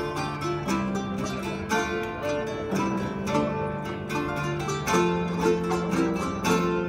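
Live medieval-style music on plucked strings: a harp and two lute-type instruments play a quick, busy tune over low held notes that change about once a second.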